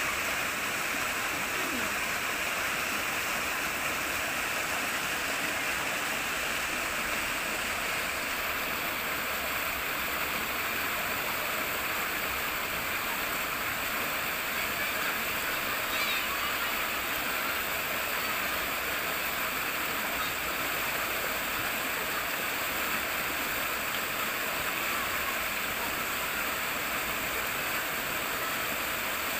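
Flowing water rippling and rushing steadily, a continuous stream sound.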